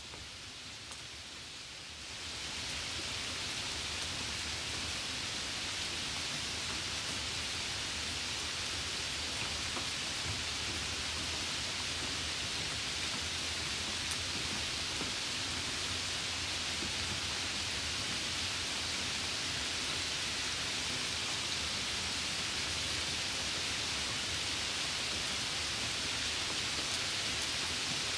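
Steady rain, an even hiss with no separate drops standing out, which swells louder about two seconds in and then holds steady.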